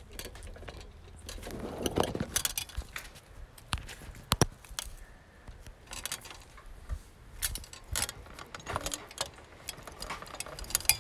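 Handling noise of a phone camera being carried and moved about: irregular clicks, knocks and rustles, with sharper knocks about two seconds in and near the middle.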